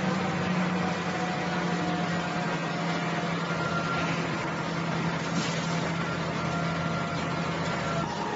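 Truck-mounted crane's engine running steadily while it lifts a long arched roof panel: a constant low hum with fainter high tones over it. The hum stops shortly before the end.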